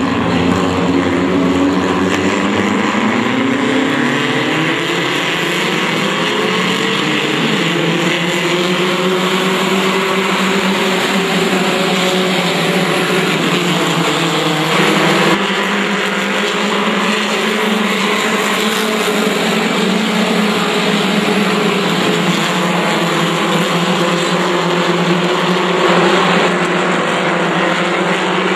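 Pure Stock race cars running at speed around a short oval track, several engines overlapping, their pitch rising and falling as the cars go through the turns and onto the straights.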